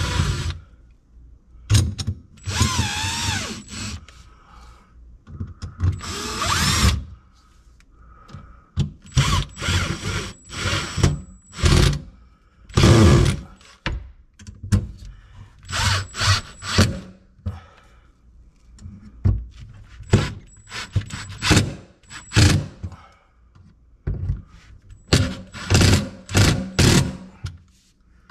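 Power drill-driver running in repeated short bursts, speeding up and slowing down, driving in the mounting screws of a garbage disposal's sink mount.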